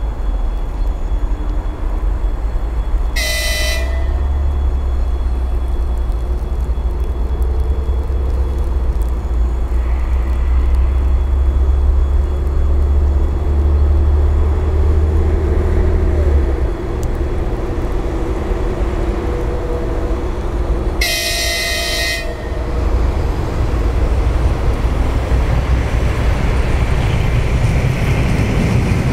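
Electric multiple unit approaching and sounding a high-pitched horn twice, short blasts about a second long and some eighteen seconds apart. A steady low rumble runs under the first half and drops away, and the running noise of the train grows as it nears.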